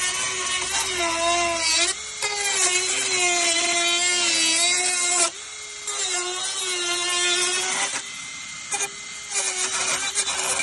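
Dremel rotary tool running at high speed against the plastic fairing, trimming the base of the headlight opening. Its whine sags in pitch as it is pressed into the plastic and recovers, with short let-offs about two, five and eight seconds in.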